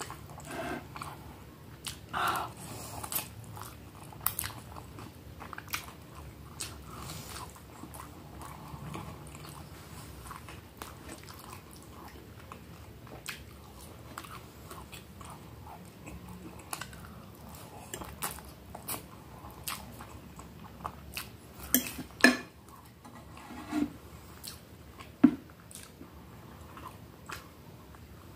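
A person chewing and biting food close to the microphone: instant noodles and a breaded cheese milanesa. Irregular wet chewing with crisp crunches and sharp clicks, a few of them louder in the last third.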